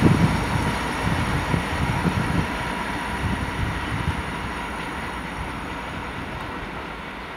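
Freight train rolling away over the rails, its sound fading steadily as it recedes, with a few low knocks from the wheels in the first two seconds or so.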